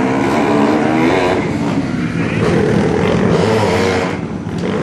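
Go-kart engines revving up and down as the karts accelerate and slow through the corners, their pitch rising and falling.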